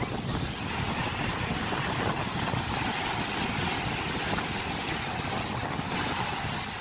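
Small waves breaking and washing up a sandy beach in a steady hiss, with wind rumbling on the microphone.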